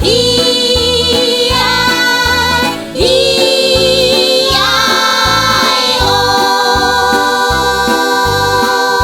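Upbeat children's song music with a steady bass beat and long held notes that step up in pitch partway through, ending on a sustained chord.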